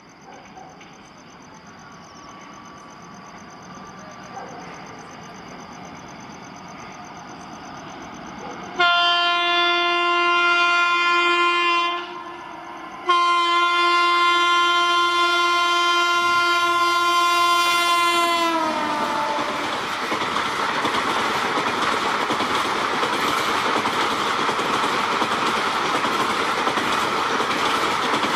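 A WAP-7 electric locomotive approaching at about 110 km/h, its running noise growing steadily louder. It sounds two long horn blasts, the second longer, whose pitch drops as the locomotive passes. Then its ICF coaches rush past with a loud, steady rumble of wheels on rail.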